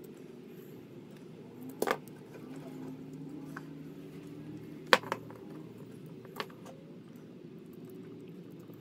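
A few sharp clicks and clinks of small tools and plug parts being handled while a power cord's plug is swapped: one about two seconds in, a louder double click about halfway, and a fainter one soon after. A low steady hum runs underneath.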